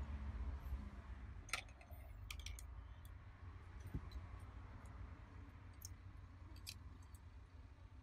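Faint, scattered light clicks and ticks from soldering on and handling a phone's circuit board, over a low steady hum.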